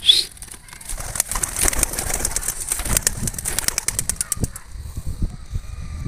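Young homing pigeons taking off when released for their first training toss, their wings clapping and flapping rapidly. It opens with a sharp, loud burst, and the flapping thins out after about four and a half seconds as the birds fly off.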